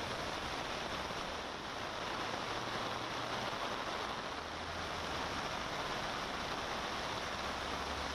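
Heavy rain pouring steadily onto a flooded road, with the low engine rumble of vehicles driving through the water underneath it.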